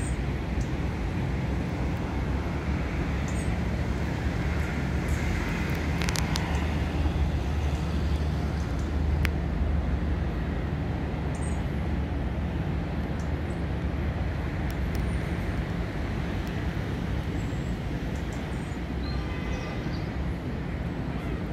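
Steady low rumble of background vehicle noise with a constant low hum, unchanging throughout.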